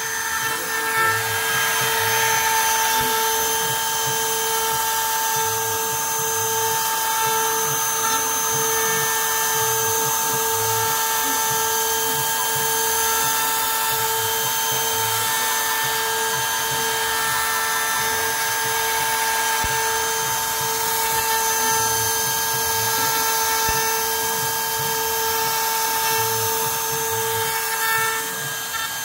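RIDGID compact router running as the spindle of a home-built CNC machine, its bit carving into a wooden board. It makes a steady high whine over a hiss of cutting, with a tone that pulses about once a second.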